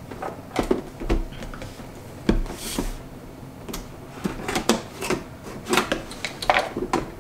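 Cardboard toy box being handled on a wooden table: a series of knocks and clicks, scissors cutting its tape seal, and the lid flap pulled open, with a brief swish about two and a half seconds in.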